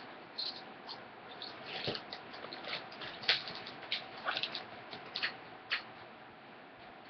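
Plastic chip bag crinkling as it is handled and a hand rummages in it, mixed with potato chips being crunched: short, irregular crackles, a few louder than the rest.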